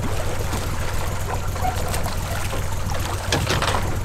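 Water splashing and trickling against a boat's side as a shot alligator is pulled alongside on a line, with a stronger splash about three and a half seconds in. Underneath is the steady low hum of the boat's idling motor.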